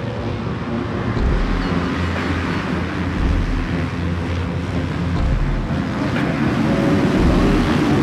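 Motocross bike engines running on the track: a dense mechanical din that grows somewhat louder toward the end.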